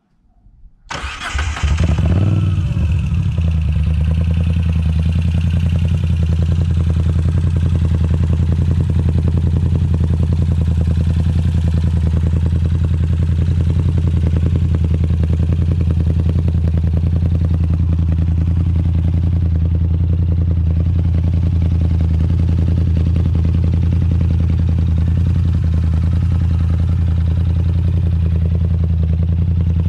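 2018 Moto Guzzi V7 III's air-cooled 744 cc transverse V-twin, breathing through Agostini short aftermarket pipes, started on the button: it catches about a second in, flares briefly, then settles into a steady idle.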